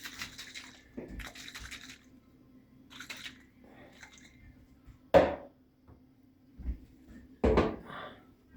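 Kitchen work sounds: short spells of water splashing in the first couple of seconds, then two sharp knocks of a utensil or container on a hard surface, the first the loudest.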